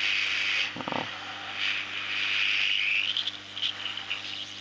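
Hot air rework station blowing on a phone circuit board to melt the solder on a SIM card reader's pins: a steady hiss of air that swells and fades as the nozzle is moved about, over a low steady hum.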